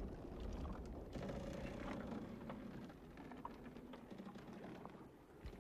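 Quiet ambience aboard a wooden longship: a low rumble with scattered faint creaks and knocks from the hull and rigging.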